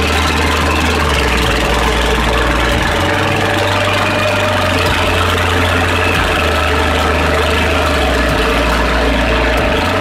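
Engine of a small Valpadana articulated tractor running steadily as it drives up a dirt track, its low pitch shifting a few times through the climb.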